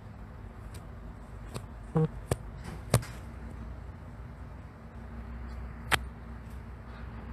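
Steady low rumble of a delivery truck's engine running, swelling slightly near the end, with about half a dozen sharp clicks and knocks over it, the loudest about three seconds in.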